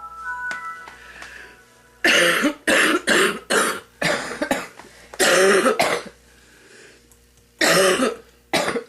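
Smoker's cough: harsh, repeated coughing in two fits, a run of about eight coughs starting about two seconds in, a short pause, then more coughing near the end, as she tries to bring the gunk up out of her lungs. A few short high tones sound in the first second.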